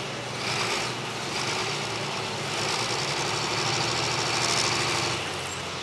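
Diesel engine of an International Harvester super farm pulling tractor running steadily at full power under heavy load, dragging the weight-transfer sled down the track.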